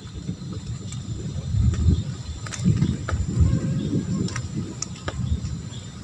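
Crickets chirping steadily, with a high, even trill over a low, uneven rumble and a few faint scattered clicks.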